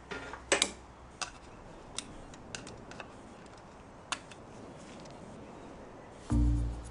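Scattered sharp clicks and taps of small metal tools against the alternator's housing, the loudest about half a second in. Background music comes in with a low note near the end.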